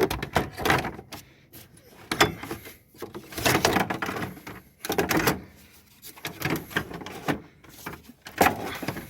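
Plastic shroud of a replacement radiator cooling fan assembly scraping and knocking against its mounts as it is slid down into place beside the radiator, in irregular clusters of knocks with short pauses between.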